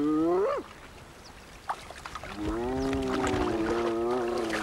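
Spotted hyenas calling while squabbling at a kill. One call rises in pitch and breaks off about half a second in, and after a short lull a long drawn-out call holds an almost steady pitch from about halfway through.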